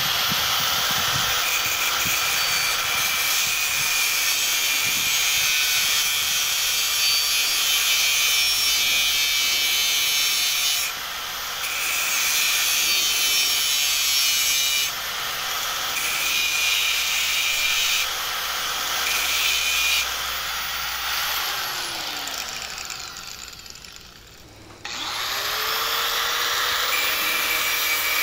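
Angle grinder trimming a steel piece to a 45-degree angle. The motor spins up with a rising whine, then runs with a loud grinding hiss that eases off briefly several times as the disc lifts off the steel. About three-quarters through it winds down with a falling whine, then starts up again and goes back to grinding.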